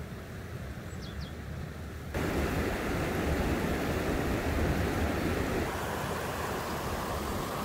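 Steady rushing outdoor noise of wind on the microphone and a shallow stream running among rocks. It jumps louder at a cut about two seconds in and eases slightly near six seconds.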